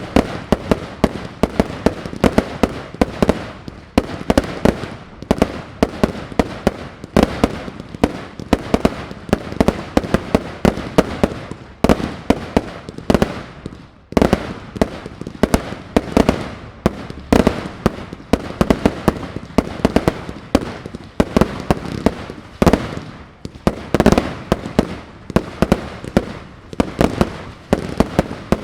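Aerial fireworks display: a dense, continuous run of shell bursts and launch bangs, many per second, with short lulls now and then.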